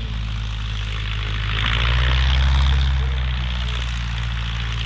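Single-engine Cub bush plane's engine and propeller running with a steady low drone, swelling louder for a second or two near the middle before easing back.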